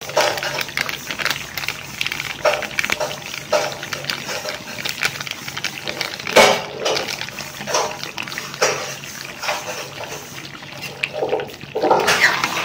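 Chicken and potato curry bubbling in an aluminium kadai, with many irregular small pops and one sharper pop about six seconds in. Near the end a spoon stirs through the pot.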